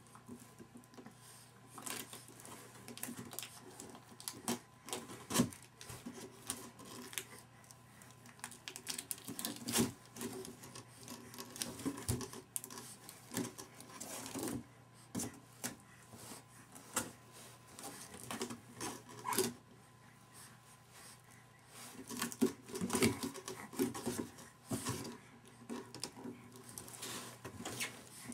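Irregular taps, slaps and scrapes of a baby's hands batting at and pulling on a cardboard diaper box, with a faint steady hum underneath.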